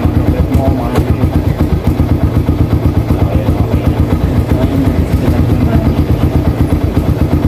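Motorcycle engine idling steadily, with an even, rapid beat.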